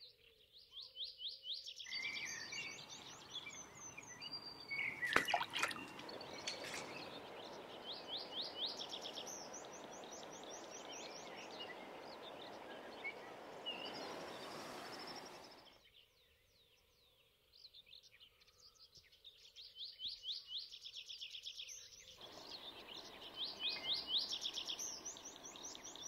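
Songbirds singing, repeated quick runs of short high notes, over a steady rushing background. The rushing drops away for a few seconds in the middle.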